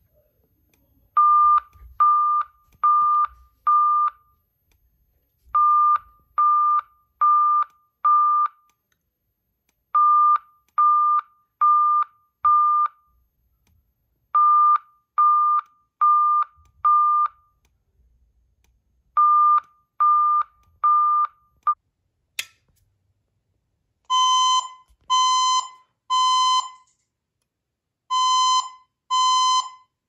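Fire alarm speaker-strobe sounding an alert tone in groups of four beeps, each group repeating about every four and a half seconds. After a click a little past twenty seconds in, a harsher, buzzier beep sounds in the temporal-3 evacuation pattern: three beeps, then a pause.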